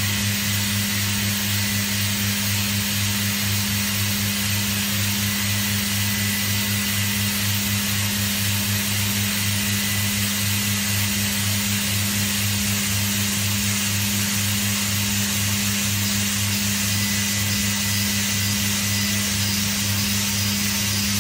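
KAAST VF Mill D Mini milling machine running steadily, a constant hum with hiss over it and no change in speed.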